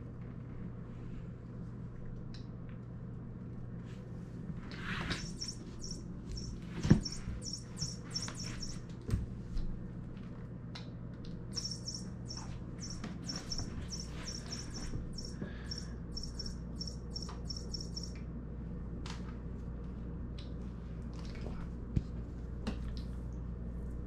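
Electronic tweeting from a battery-powered bird toy, in two stretches of rapid high chirps, while a cat bats and grapples it on a vinyl floor with scattered knocks and scuffs, the loudest a sharp knock about seven seconds in. A steady low hum runs underneath.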